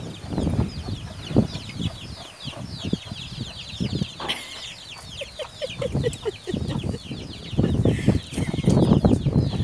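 Chickens clucking, with a brief run of evenly spaced clucks about halfway through, over a continuous chorus of high, falling chirps. Low thumps and rustling grow louder near the end.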